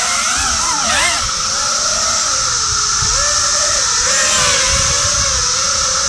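Small FPV racing drone's motors and propellers whining, the pitch swooping up and down with the throttle and then wavering as it flies. Behind it runs a steady chorus of periodical cicadas.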